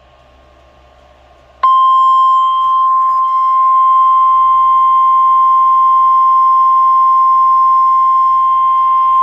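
NOAA Weather Radio 1050 Hz warning alarm tone, the emergency alert attention signal that precedes a weather warning message. It is a single loud, steady tone that starts abruptly about a second and a half in and holds without a break.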